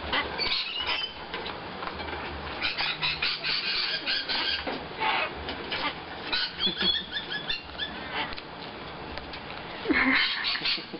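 Sulphur-crested cockatoos giving short, squeaky calls and chatter, with a louder burst of calling about ten seconds in.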